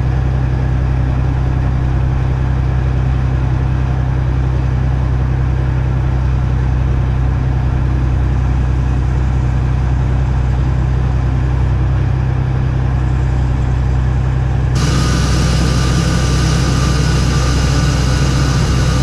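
Crane's diesel engine running steadily with a deep, even drone. About three-quarters of the way through, a louder hissing, whining layer joins it.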